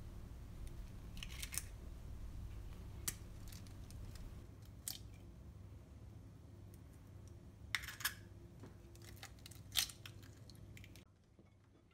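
Raw eggs cracked and their shells pulled apart by hand over a bowl: a few short, scattered cracks and clicks, the sharpest near the end, over a faint steady low hum.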